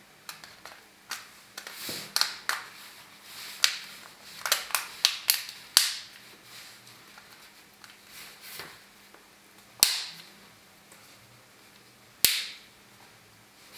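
Sharp clicks and snaps of small phone parts and tools being handled, a quick run of them in the first half, then two louder single snaps near the end.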